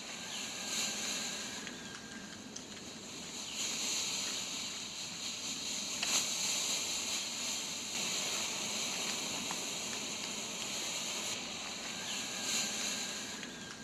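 Pull-string colour smoke grenades burning, a steady high hiss of smoke rushing out of the canisters that swells a few seconds in and eases slightly near the end.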